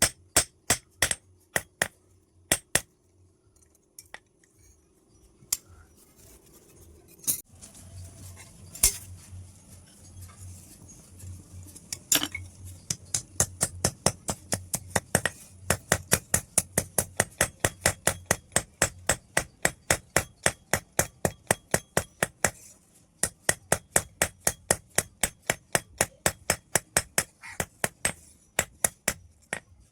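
Hammer blows on steel against an anvil, forging the scissors' metal into a knife. Scattered single strokes at first, then steady runs of about three strikes a second from about halfway, with a short break near the two-thirds mark.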